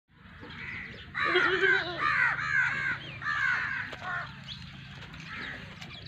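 Crows cawing, a quick run of harsh repeated calls starting about a second in and thinning out after about four seconds.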